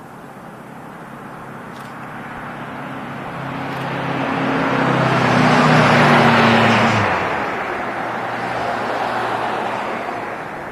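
A car passing close by on the road, its engine and tyre noise swelling to its loudest about six seconds in and then fading away, with a smaller rise again shortly after.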